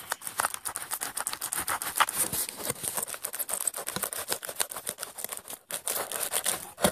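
Tape being cut from a cardboard figure box, with close handling of the packaging: dense, irregular crackling and clicking, with a short lull late on.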